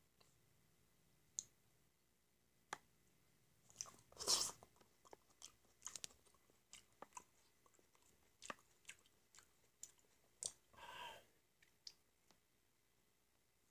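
Close-miked sounds of peeling and eating black grapes: scattered soft wet clicks and smacks of fingers and mouth, with a louder one about four seconds in and a longer one near eleven seconds in.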